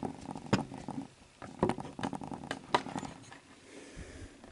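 Screwdriver turning screws into the metal video head drum assembly of a Sony SL-HF600 Betamax, giving several sharp metal clicks and taps amid light handling noise, the loudest clicks about a second apart.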